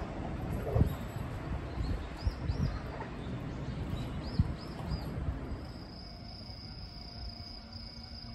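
Outdoor ambience: a low rumble with scattered knocks, over which small birds give short chirps in twos and threes. About six seconds in it turns quieter and an insect trill starts, one steady high note.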